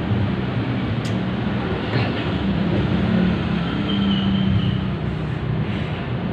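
Steady low rumbling background noise with a hum, and a couple of faint clicks about a second and two seconds in.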